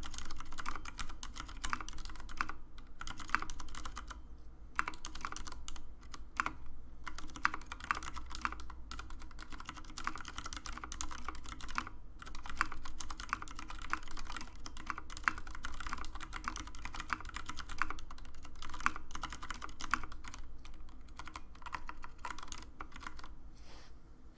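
Typing on a TX75 mechanical keyboard with tactile Cherry MX Grey switches on a brass plate, spacebar and modifiers on tactile Gateron Clear switches: fast, continuous key clacks with a few brief pauses, thinning out near the end.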